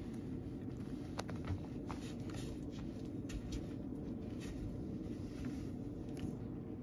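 A cat crunching dry kibble: a scatter of small, sharp crunches and clicks over a steady low hum.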